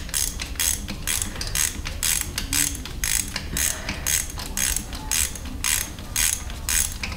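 Hand socket ratchet being swung back and forth on a bolt, about two strokes a second, each backstroke a short run of pawl clicks.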